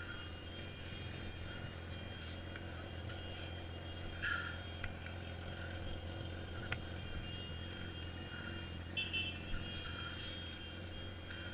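Steady low hum of a motorcycle engine idling, with a couple of faint light clicks.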